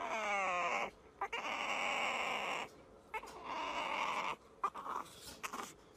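A kitten crying: a wavering, pitched mew in the first second, then two longer raspy, noisy cries and a few short ones.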